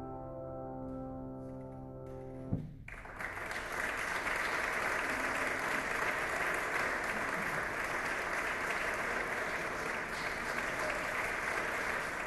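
A held keyboard chord rings out, then stops abruptly with a click about two and a half seconds in. An audience then applauds steadily.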